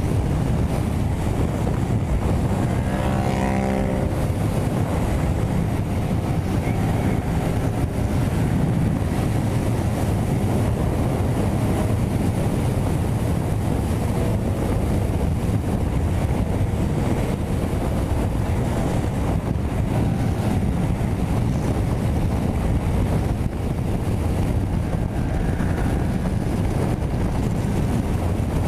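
Yamaha MT-07 parallel-twin engine running steadily in sixth gear at highway speed, about 150 km/h, under heavy wind rush on the microphone. A brief pitched hum comes through about three seconds in.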